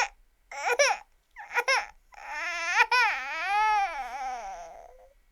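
Baby crying: a few short sobbing cries, then one long wavering wail that rises and falls in pitch and fades out.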